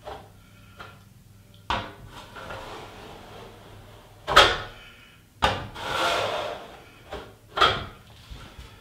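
Putty knife scraping against a mud pan, working leftover Bondo glazing and spot putty, in about six short strokes. The loudest comes about four and a half seconds in, and a longer scrape follows near six seconds.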